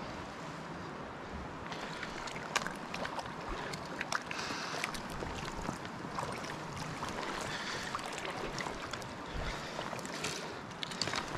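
Steady rush of a river's flowing water around a wading angler, with scattered light clicks and brief splashes as a hooked fish is brought to a landing net.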